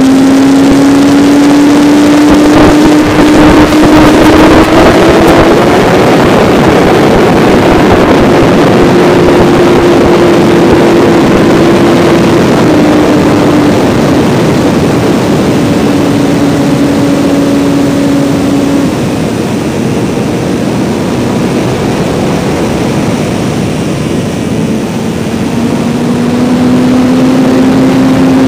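Electric motor and propeller of an RC model T-34 Mentor heard from a camera riding on the plane in flight: a steady whine over rushing air. The whine rises in pitch a few seconds in, fades out for several seconds about two-thirds of the way through, and comes back near the end.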